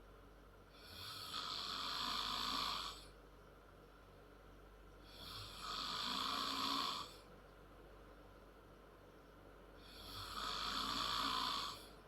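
A 10-year-old girl snoring loud and hard: three long snores about four to five seconds apart, each building up over a second or two and then cutting off.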